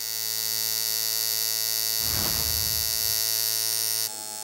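Electric tattoo machine buzzing steadily as the needles run in the skin. There is a brief low rustling noise about two seconds in. Near the end the buzz drops in level and changes tone slightly as another machine is heard.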